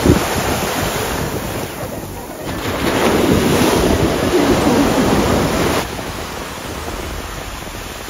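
Sea waves washing in on the shore, with wind buffeting the microphone. The surf grows louder for a few seconds in the middle, then falls back.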